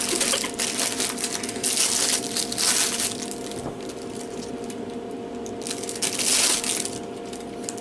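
Packaging crinkling and rustling in several bursts as a small bag is opened and handled, loudest in the first three seconds and again about six seconds in.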